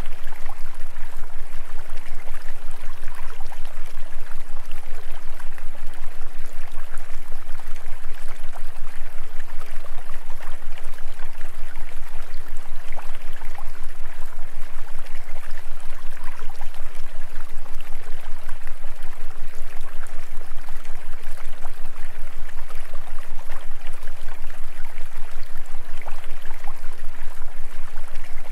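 A steady running-water sound, like a flowing stream, over a steady low hum, with a fast, even pulse in loudness.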